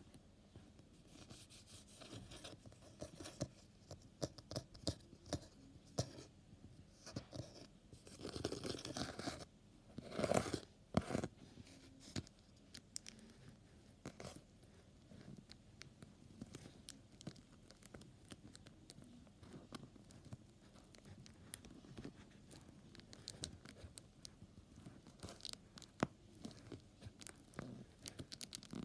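Fingers crinkling and pressing a plastic bag taped to a cardboard board, and scratching and tapping over the cardboard: irregular crackles, scrapes and small clicks, with two louder stretches of crinkling about a third of the way through.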